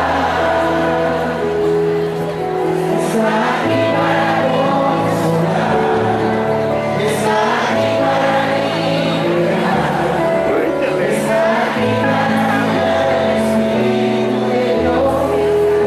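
Christian praise and worship song with singing over sustained accompaniment and a bass line that changes note every second or so.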